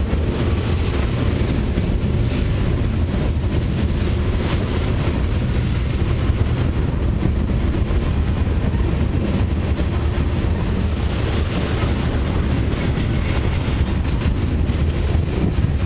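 Freight train tank cars rolling past: a steady rumble of steel wheels on the rails with a constant run of small clicks and rattles.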